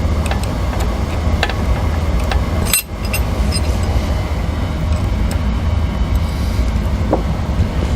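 Small metal clicks and clinks of steel washers and socket head cap screws being handled and fitted, over a steady low rumble of background noise.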